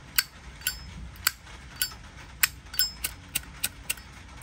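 Zippo lighter's lid being flipped open and snapped shut again and again: about a dozen sharp metallic clicks, some with a short ringing ping.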